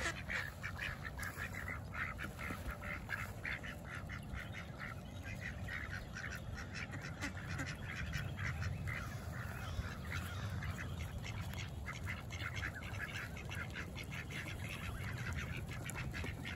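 A flock of ducks quacking and chattering steadily, many short calls overlapping, while they feed.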